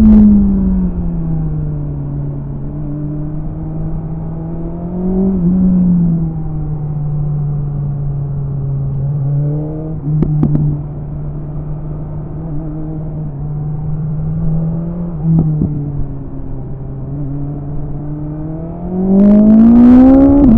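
BMW S1000RR sport bike's inline-four engine riding on a curvy road. Its note drops as it eases off at the start, runs steadily at part throttle with a few short revs, then climbs sharply in pitch and loudness as it accelerates hard near the end.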